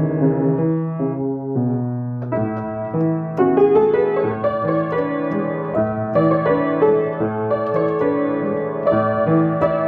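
Yamaha upright piano played solo: a classical melody over a steady, repeating left-hand accompaniment.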